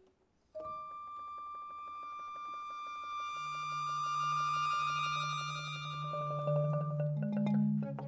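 Contemporary chamber music for flute, saxophone, percussion and accordion. After a brief silence a long high note is held over a fast mallet tremolo, a low held tone joins a little after three seconds in, and sharper struck notes come near the end.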